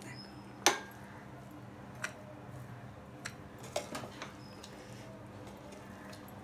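Plastic serving spoon knocking and scraping against an aluminium pot while scooping biryani rice: one sharp knock under a second in, then a few lighter taps, over a faint low hum.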